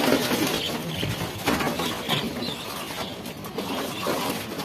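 Flock of birds calling in short, scattered chirps over a steady rustling, noisy background.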